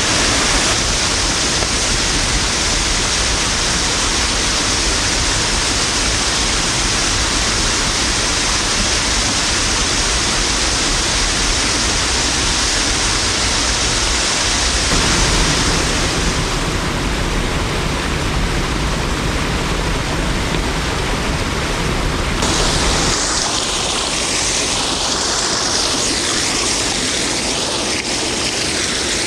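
Waterfall: a loud, steady rush of falling water. Its tone shifts about halfway through and again about three-quarters of the way through.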